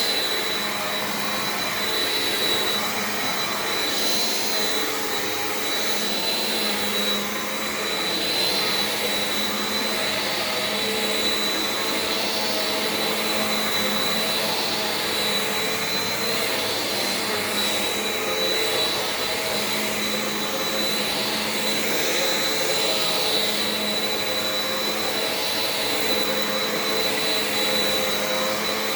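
Bissell PowerForce Compact 2112 upright vacuum cleaner running steadily, its motor giving a continuous high whine over the rush of air.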